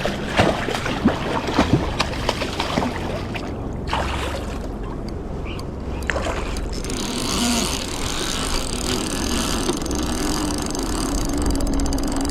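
A boat motor running steadily with a low rumble, with scattered sharp clicks and knocks in the first few seconds and a hiss in the middle.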